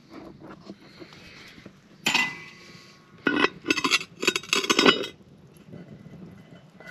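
Metal lid lifter hooking into and scraping against the lid of a cast-iron Dutch oven, giving ringing metal clinks and clanks: one about two seconds in, then a run of them from about three to five seconds.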